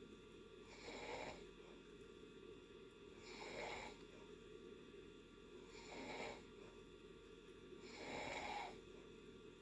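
Faint snoring in deep sleep: four slow, hissy breaths, one about every two and a half seconds.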